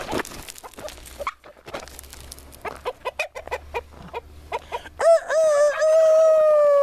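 Barred Rock rooster crowing: one long, loud crow starting about five seconds in, its pitch sliding slowly down. Before it, soft clucking and short calls from the flock.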